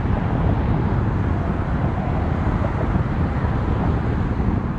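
Twin-engine jet airliner's engines at takeoff thrust, a steady low rumble as it lifts off and climbs away, mixed with wind buffeting the microphone.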